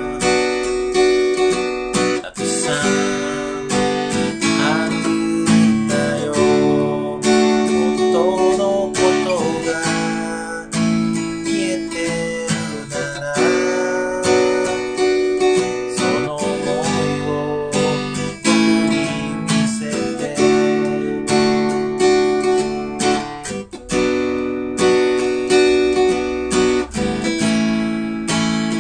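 Acoustic guitar strummed in chords, with a man singing over it.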